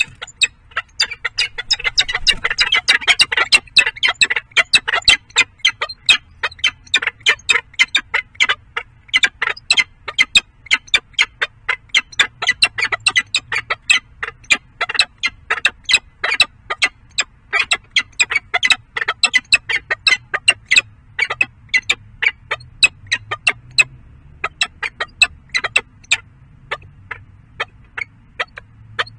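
Peregrine falcons in the nest box giving short, sharp calls over and over, about two or three a second, the courtship calling of a pair at the nest scrape. The calling is densest and harshest a couple of seconds in and grows sparser toward the end.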